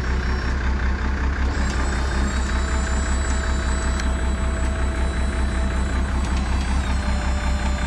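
Rollback tow truck's engine running with a steady low throb while its hydraulic winch pulls a car up the tilted bed. A steady high whine from the hydraulic system comes in about two seconds in.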